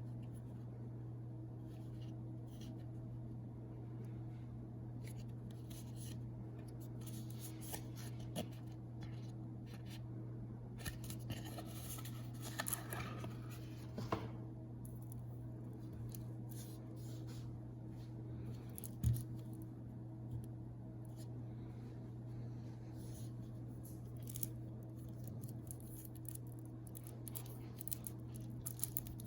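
A deck of playing cards and its tuck box being handled: scattered soft clicks, slides and rustles of card stock, with one sharper tap about two-thirds through, over a steady low hum.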